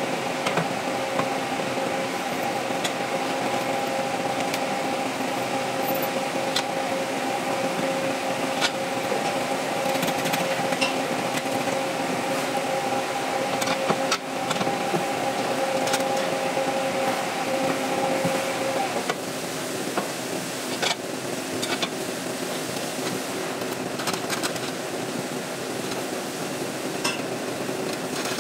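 Steady whooshing of running air coolers, with a steady two-note hum that stops about two-thirds of the way through. Scattered light metal clicks and knocks as a ventilation fan unit is handled and fitted onto its steel frame.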